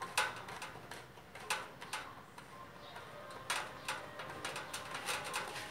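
Irregular sharp clicks and taps as a chrome sink drain fitting is turned and worked into place by hand.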